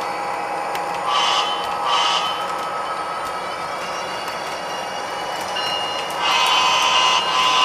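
Horn of an HO-scale model diesel locomotive sounding in short blasts: two about a second in, then a longer blast and a short one near the end. Under it runs the steady hum of the model train on the track.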